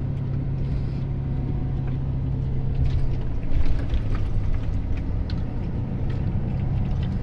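Truck engine running steadily while driving, heard from inside the cab, with light rattles; the engine note drops a little about three and a half seconds in.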